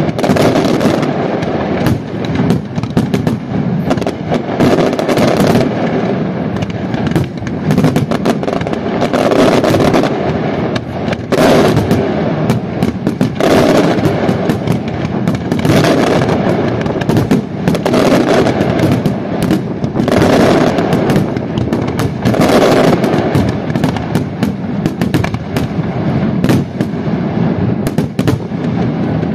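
Large fireworks display: a dense, continuous barrage of bangs and crackling, swelling in waves about every two seconds.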